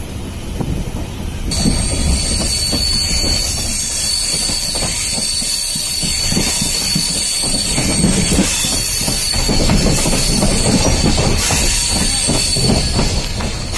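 Passenger train coaches rolling along the track, a steady rumble with wheel-on-rail knocks. From about a second and a half in, a high steady wheel squeal joins in.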